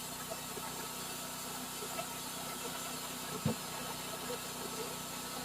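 Engine of a Cook's HD3238 band sawmill running steadily, with one short knock about three and a half seconds in.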